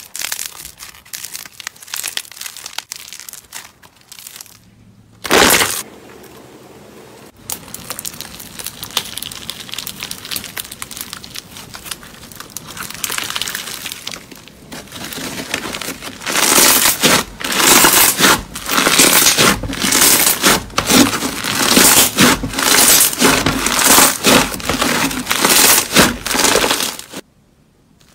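Hands squeezing, stretching and kneading slime, including a white foam-bead floam: crackling, clicking and popping. The sound is sparse at first, with one loud burst about five seconds in, then turns into a fast, loud run of pops and clicks in the second half that stops abruptly just before the end.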